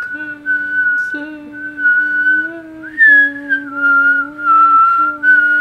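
Whistling: a slow tune of long held notes that rises briefly about three seconds in and slides back down, over a lower sustained note.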